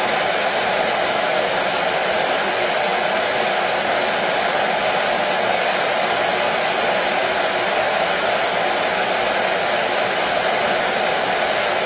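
Washing machine running with a steady, even whir, strongest in the lower middle range, with no breaks or knocking.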